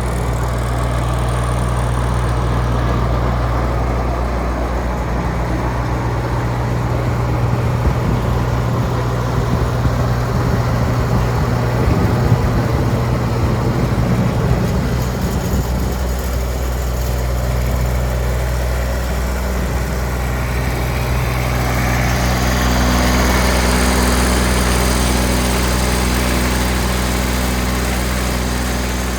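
Diesel engine of a Grasshopper 325D zero-turn mower running steadily. Its sound shifts about twenty seconds in, with more high-pitched mechanical noise joining the low drone.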